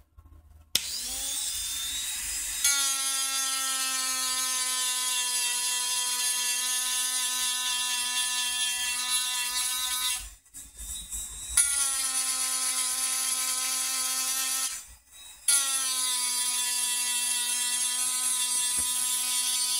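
Rotary engraving handpiece spinning a round burr against a titanium knife handle scale, levelling the engraved background: a steady, high motor whine that spins up about a second in. It stops twice briefly, around halfway and again about three-quarters through, and restarts each time.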